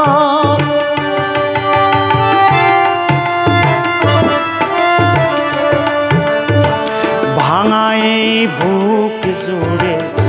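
Harmonium playing held melody notes over a steady tabla rhythm: the instrumental interlude of a Bengali Baul folk song.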